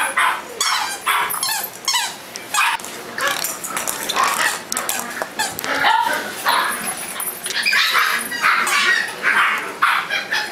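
Shiba Inu puppy yipping and barking over and over in short, high calls that follow one another closely.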